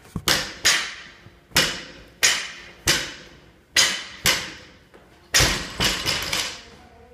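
A barbell loaded with bumper plates striking a rubber gym floor again and again during deadlift reps: sharp thuds with a metallic clank of the plates on the sleeves, roughly one to two a second. About five and a half seconds in, the bar is let down and bounces and rattles for a moment.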